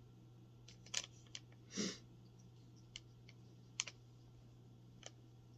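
Faint handling noise: a few scattered sharp clicks and taps from a small plastic single-dose tincture tube turned over in the fingers, with a brief rustle about two seconds in, over a low steady hum.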